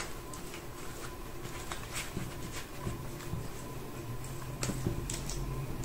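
Faint handling sounds of cash and budget envelopes: light rustling with a few soft, sharp ticks scattered through it.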